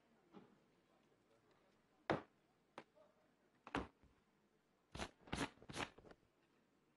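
Sparse sharp taps or knocks against near silence: a faint one at the start, single ones about two, three and four seconds in, then three in quick succession about five seconds in.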